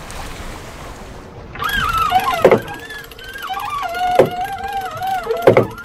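Genoa furling gear being worked under load: a wavering squeal starting about a second and a half in, with three sharp knocks.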